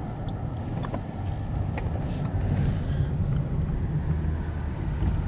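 A car driving along a street, heard from inside the cabin: a steady low engine and road rumble, with a brief hiss about two seconds in.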